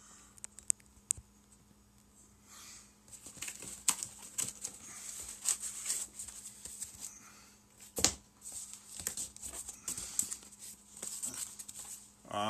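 Cardboard boxes being handled: scraping, rustling and knocking of cardboard as small boxes are lifted out of a large shipping carton. A few sharp clicks come near the start and a louder knock about eight seconds in.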